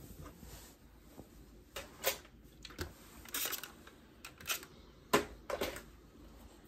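Scattered sharp clicks and light knocks from a clothes iron and sewing tools being handled on an ironing board, with a brief hiss about three and a half seconds in.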